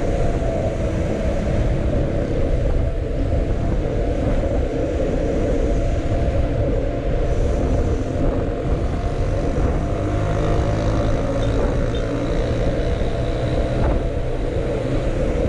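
Steady wind noise rumbling on the microphone of a camera riding along on a moving bicycle, mixed with road noise.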